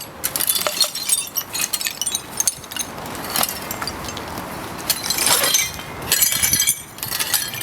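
Clinking and clattering of loose objects and debris being handled and tossed, with louder bursts of clatter about five seconds in and again near the end.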